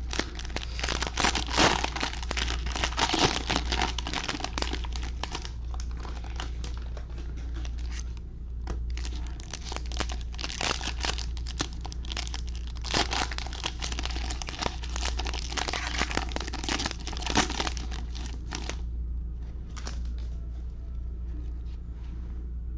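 Plastic cellophane wrapper of a trading-card cello pack being torn open and handled by gloved hands: a dense crinkling with sharp crackles, thinning out a few seconds before the end, over a steady low hum.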